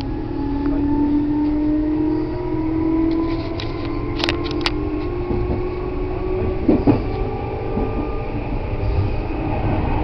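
Meitetsu electric commuter train running, heard from inside the car: a steady motor hum that falls slightly in pitch, with two sharp clicks about four seconds in and a pair of knocks near seven seconds.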